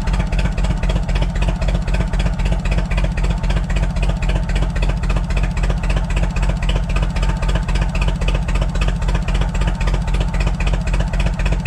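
Propane-fuelled forklift engine running steadily with a regular pulsing beat, missing on one cylinder: the back cylinder's spark plug is not firing, its spark jumping to the cylinder head instead.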